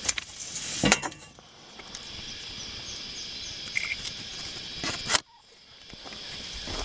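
A few knocks and rustles from someone clambering about inside an old car wreck, with a sharp knock about a second in and a louder one about five seconds in, over a faint steady high hiss of outdoor ambience.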